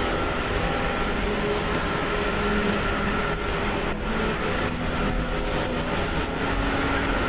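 Steady rumble and hiss inside an Airbus A380 cockpit while the airliner taxis after landing, with a few faint steady tones in it.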